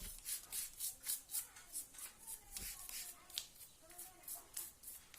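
Hand scraping back and forth in quick, even strokes, about three to four a second.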